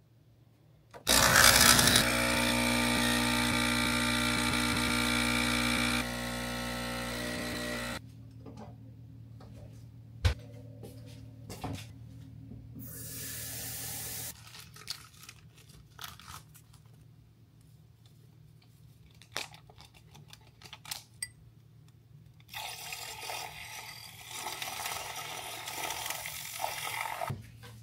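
A small electric motor whirs at a steady pitch for about seven seconds, dropping in level twice, followed by scattered clicks and handling noises.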